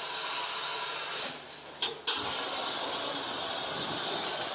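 Hollow-jet firefighting nozzle spraying water into the hot flash-box, a steady hiss of spray and steam that drops off briefly a little before two seconds in and cuts back in abruptly.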